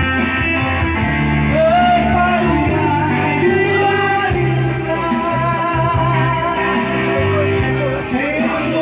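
A man singing a song over instrumental accompaniment, his voice wavering across long held notes above a bass line that moves from one sustained note to the next.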